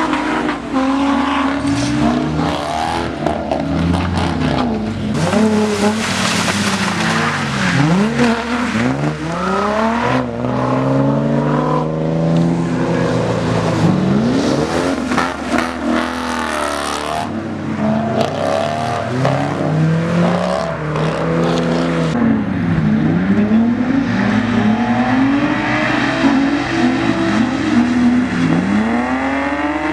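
Cars drifting: engines revving up and down again and again, with tires squealing and skidding.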